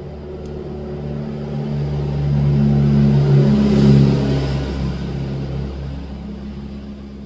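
A motor vehicle engine over a steady low hum, growing louder to a peak about four seconds in and then fading away.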